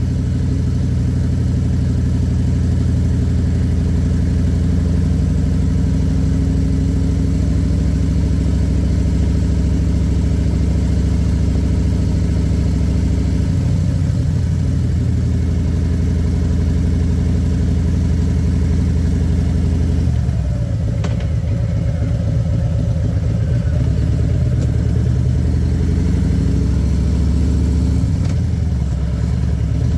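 Harley-Davidson Electra Glide Standard's Milwaukee-Eight V-twin engine running steadily under way. Its note drops about two-thirds of the way through, then rises again as the bike picks up speed.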